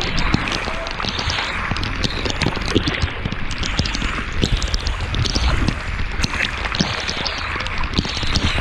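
Heavy rain pouring down onto floodwater in a steady hiss, with many sharp clicks of drops striking close by. Wind rumbles on the microphone throughout.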